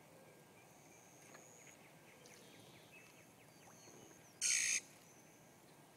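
Faint outdoor background with thin, high whistled calls, and one short, loud, harsh call about four and a half seconds in.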